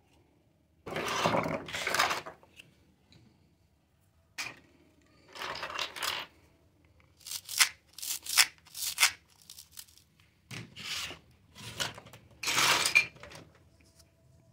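Small plastic toy kitchen pieces being handled and set down: short bursts of rubbing and scraping with sharp plastic clicks in between.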